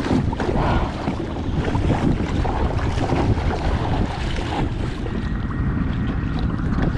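Wind buffeting the microphone, with water lapping and splashing against a kayak on a choppy lake.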